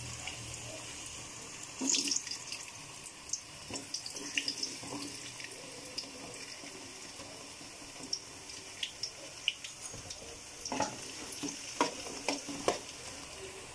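Raw banana pieces frying in hot oil in an aluminium pot, a steady sizzle. Scattered clicks and scrapes come from pieces being pushed in off a cutting board with a knife and stirred with a spoon, busier near the end.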